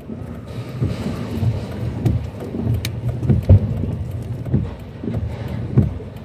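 Tornado wind rushing and gusting, rising and falling, with repeated low thumps; the loudest thump comes about three and a half seconds in.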